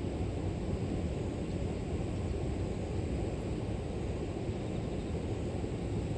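Steady rushing of river water, heaviest in the low range, with a faint steady high insect note above it.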